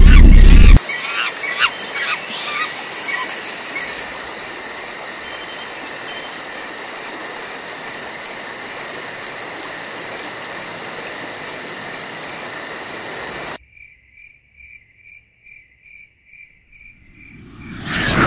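A 3-inch FPV quadcopter's brushless motors heard through its onboard DJI air unit recording: a loud low rumble that drops off within the first second, then a steady high whine with quick pitch swoops as the throttle changes. About thirteen seconds in the whine cuts off abruptly, leaving a faint tone pulsing two to three times a second, and a loud rush of noise builds near the end.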